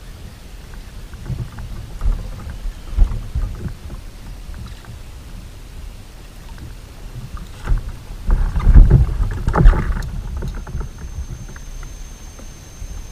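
Small knocks and bumps on a fishing kayak's hull with water movement and low rumble, and a louder cluster of knocks and handling noise about eight to ten seconds in.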